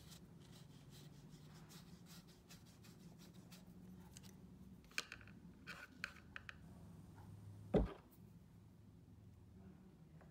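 Watercolour brush faintly scrubbing across paper, then a few light clicks and one soft thump about three-quarters of the way through, over a low room hum.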